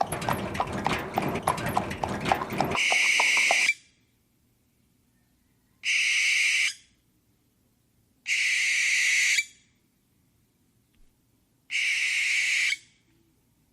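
Dense clattering for the first few seconds, then a harsh owl screech about a second long, repeated four times with gaps of a couple of seconds.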